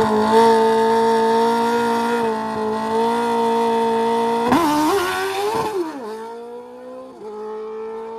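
Drag-racing motorcycle engine held at a steady high rev on the start line, then launching about four and a half seconds in: the note jumps and wavers as the rear tire spins, and the sound fades as the bike pulls away down the strip.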